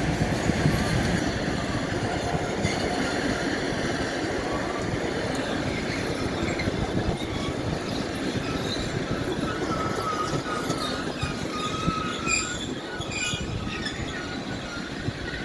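Passenger train cars rolling past while slowing to a stop, a continuous rumble of wheels on rail that gradually fades, with high wheel and brake squeals coming in about two-thirds of the way through.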